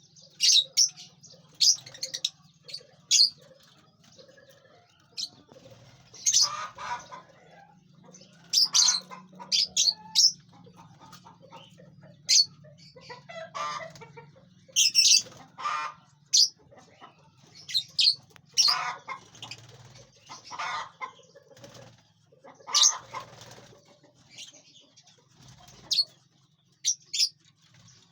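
A flock of lovebirds chirping with many short, sharp, high calls, with flurries of wing flapping every few seconds as birds fly about.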